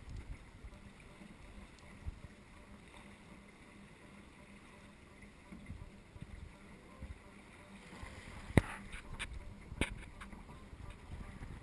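Water rushing along the hull of a Swallow Boats BayRaider sailing downwind in a following sea, with wind on the microphone. A few sharp knocks come about two-thirds of the way through, the first the loudest.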